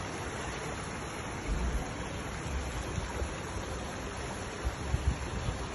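Fast-flowing floodwater rushing along a flooded street: a steady rushing noise, with a few brief low thumps in the middle and near the end.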